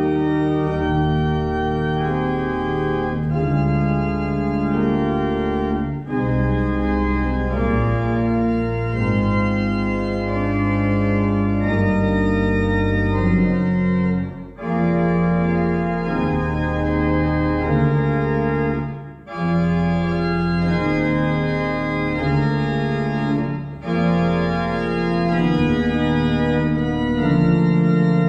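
Church organ playing a piece in held chords over low bass notes, the chords changing about every second, with short breaks between phrases.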